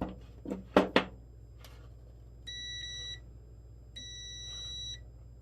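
Digital multimeter beeping twice as its probes are put on a LiFePO4 cell, a steady high beep of under a second and then a longer one of about a second; it beeps when the probes are on the cell with reversed polarity. A couple of short sharp handling sounds come about a second in.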